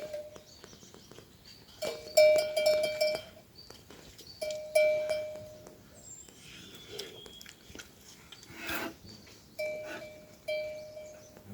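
Livestock neck bells ringing in short irregular bursts as the herd moves, with a brief animal call near the end.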